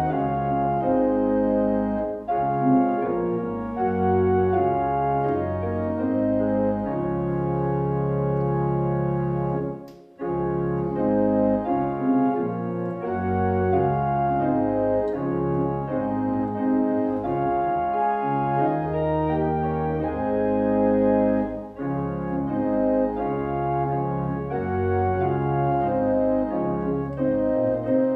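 Two-manual electronic church organ playing a slow piece in held chords that change every second or so, with a short break about ten seconds in.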